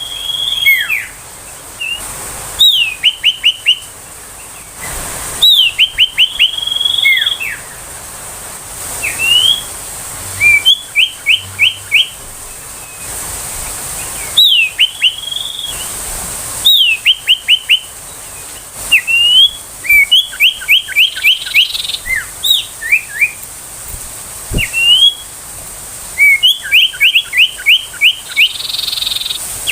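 Common iora calling: phrases of quick, down-slurred whistled notes, four to six in a row, some led by a long held whistle, repeated every few seconds over a steady high hiss.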